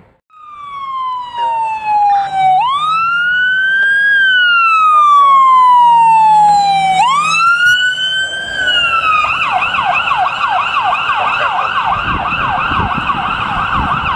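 Electronic siren on a 2003 Ford light rescue truck sounding a wail: a quick rise, then a long falling tone, twice over. About nine seconds in it switches to a fast yelp of about four sweeps a second.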